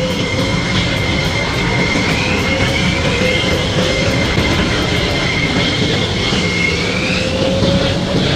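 F-16 fighter jets taxiing past, their jet engines running at low power with a steady rumble and a high whine that drifts slowly up and down in pitch.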